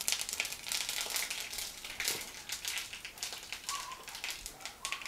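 Mustard seeds popping and crackling in hot coconut oil as they splutter for a tempering. It is a dense run of sharp pops that thins out after about two seconds.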